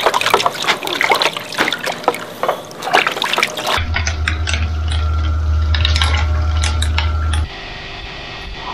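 Water splashing as hands wash a small dog in a plastic basin of soapy water, then a shower head spraying water onto the dog, with a steady low hum under the spray.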